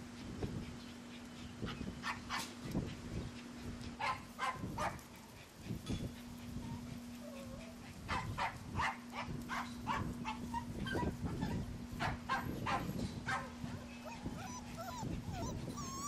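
Four-week-old Labrador retriever puppies making small yips and squeaks, among clusters of short sharp clicks and a faint steady hum.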